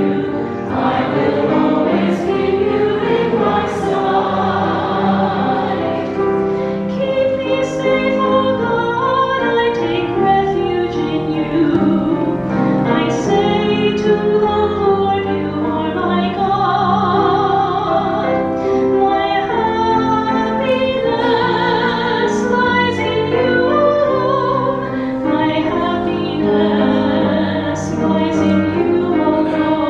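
A choir singing, several voices holding sustained notes together in a slow, steady line.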